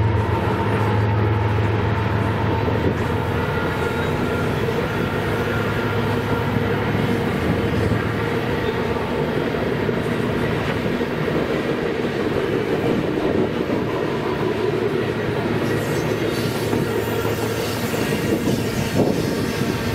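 Freight train passing: the low drone of its diesel locomotives fades over the first few seconds, then a string of covered hopper cars rolls by with steady wheel-on-rail noise and clickety-clack.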